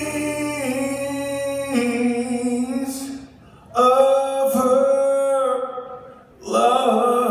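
A male voice singing long held notes in three phrases, with short breaks between them, over sparse accompaniment.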